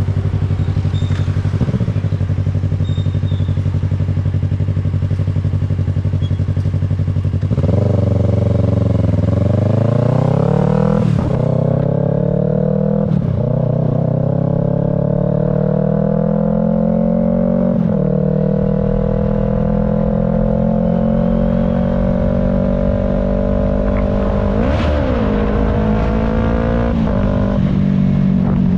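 Yamaha R3 parallel-twin engine through a full Arashi aftermarket exhaust, idling steadily for about seven seconds, then opened up: the engine note climbs over the following seconds with several brief dips and one quick rev blip near the end.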